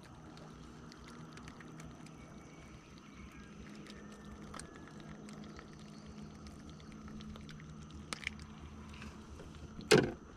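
Steady low hum with a faint high whine over it, and scattered small clicks and taps from hands handling a hooked giant freshwater prawn; a sharper knock near the end.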